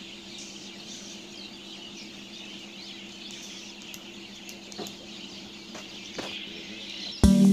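Birds chirping continuously in the background over a faint steady hum, with a few light clicks. Loud music starts just before the end.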